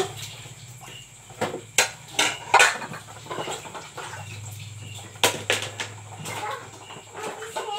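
Plates clinking and clattering against each other as they are washed by hand. There is a cluster of sharp knocks between about one and a half and two and a half seconds in, and two more about five seconds in.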